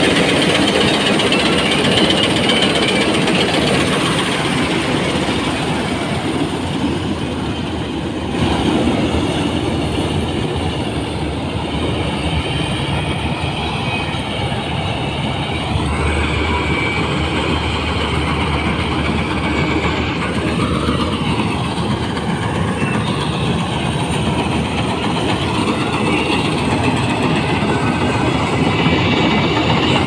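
Malkit combine harvester running while it cuts rice, its engine and threshing machinery making a loud, steady mechanical noise.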